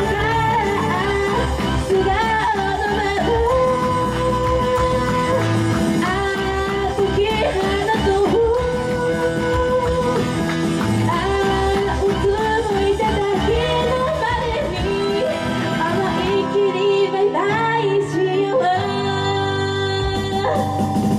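A female idol singing a pop-rock song live into a handheld microphone, her held and gliding notes over loud full-band accompaniment. The bass and drums drop out for about two seconds near the end, then come back in.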